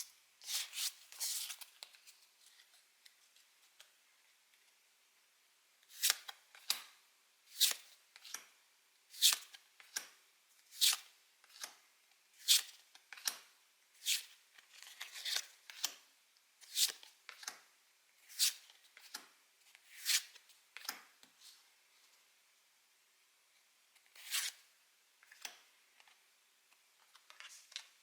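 A booster pack's foil wrapper crinkling and tearing at the start. After a pause, Pokémon trading cards are slid one by one off the stack, a short papery swipe roughly every second, with a few more near the end.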